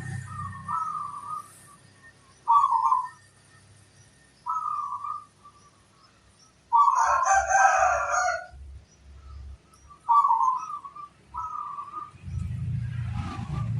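Perkutut (zebra doves) cooing in short separate phrases, one every few seconds. About seven seconds in comes one louder, fuller call lasting about a second and a half.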